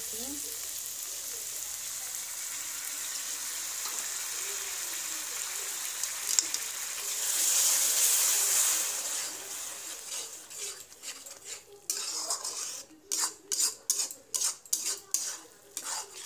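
Ground onion, garlic, ginger and tomato paste sizzling as it fries in hot oil in a metal kadhai, the hiss swelling about eight seconds in. Then a steel spatula scrapes and knocks against the kadhai in quick strokes, about two a second, as the paste is stirred.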